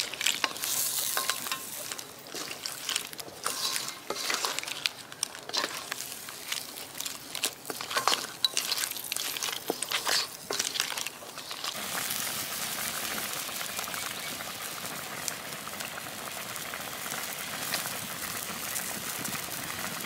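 Crab masala being stirred in a wok: a metal spatula scrapes and clicks against the pan over a sizzle. About twelve seconds in the stirring stops and a steady sizzling and bubbling of the gravy carries on alone.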